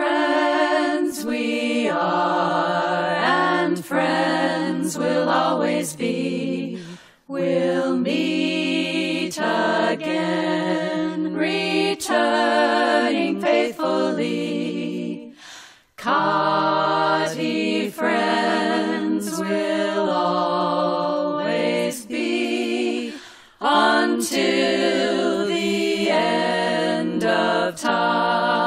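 A group of voices singing a cappella in harmony, holding sustained chords in phrases that break off sharply about seven, sixteen and twenty-three seconds in.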